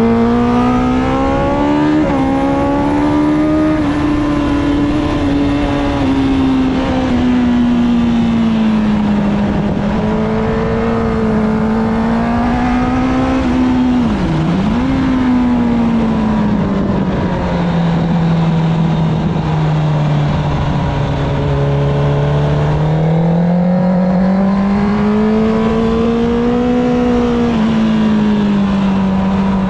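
2008 Honda CBR1000RR inline-four engine running hard on track, heard from onboard: the revs climb and ease off repeatedly. About halfway through, on the straight, the pitch drops sharply and picks up again as the bike shifts up a gear. Wind noise runs throughout.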